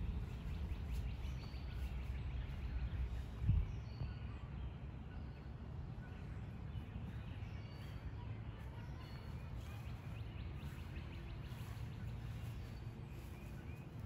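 Outdoor garden ambience: a steady low rumble with scattered short bird chirps, and a single low thump about three and a half seconds in.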